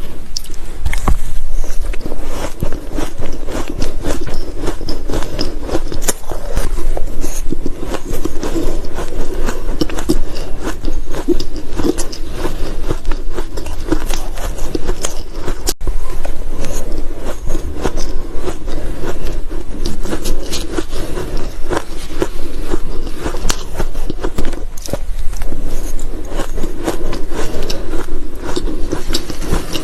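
Close-miked crunching of ice being bitten and chewed: a dense, unbroken run of crisp cracks and crackles, with no pauses.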